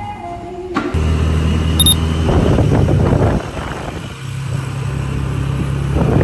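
Motorcycle engine of a tricycle running steadily, heard from inside the sidecar with wind and road rush. The engine note eases off about two and a half seconds in and then picks up again, steady.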